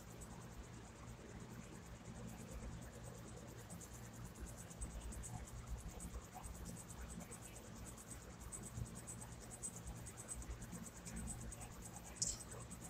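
Faint insect chirping, a fast high trill that carries on steadily over a low hum. A brief sharper sound comes near the end.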